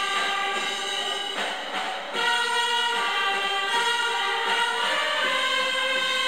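A choir singing a hymn in long held notes, with a short break between phrases about two seconds in.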